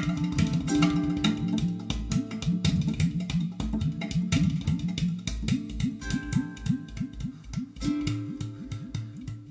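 Recorded guitar music played back through a pair of large JBL loudspeakers in a room: fast plucked notes over quick, repeated low bass notes.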